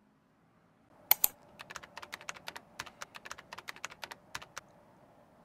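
Computer keyboard typing sound effect: a quick run of sharp key clicks, about six a second, starting about a second in with one louder click and stopping about four and a half seconds in.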